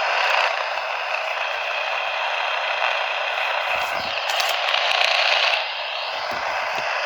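Steady radio static hiss with some crackle, as from a receiver with no clear signal, and a few faint low thumps.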